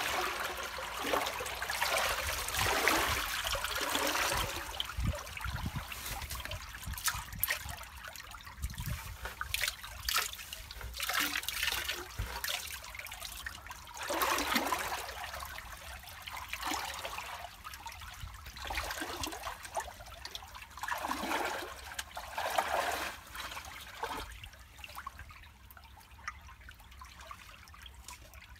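Muddy rainwater gushing and swirling out through a blocked drain that has just been cleared, splashing in uneven surges. It is loudest in the first few seconds and eases off near the end as the flow settles.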